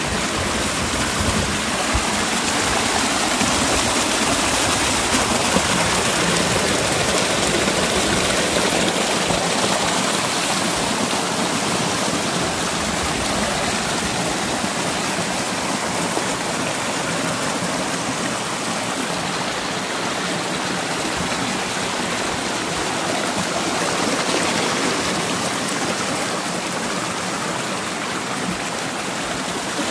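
Shallow creek water rushing and splashing down a narrow granite chute close by, a steady, even rush.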